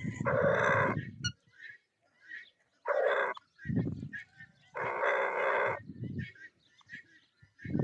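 Domestic fowl calling: three harsh calls, each lasting about half a second to a second, with low rumbling noise between them and fainter calls scattered throughout.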